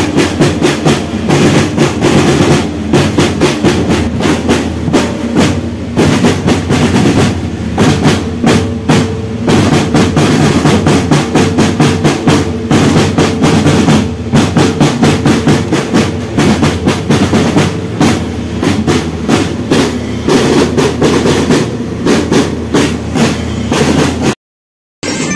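Marching drum band playing: massed snare and marching drums beating a fast, steady cadence. The sound cuts off abruptly near the end.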